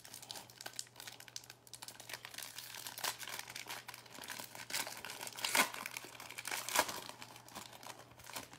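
Wrapper of a 2021 Topps Series 1 baseball card pack being torn open and crinkled by hand, with irregular crackles and a few sharper tears.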